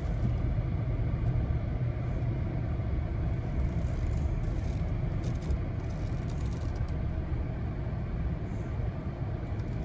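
A car's steady low rumble, with no sharp events.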